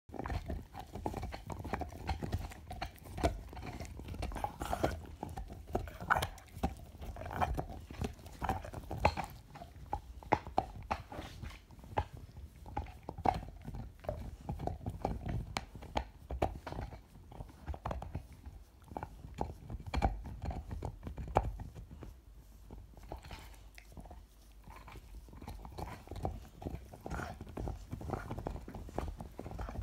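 Dog gnawing on an antler chew: irregular hard clicks and scrapes of teeth on antler, fewer and quieter for a few seconds in the second half.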